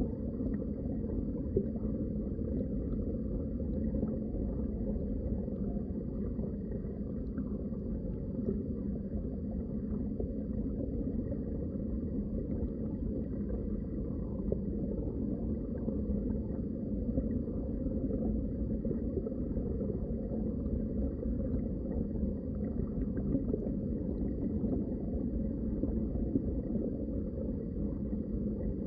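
Water heard underwater: a steady, muffled low rumble with no single event standing out.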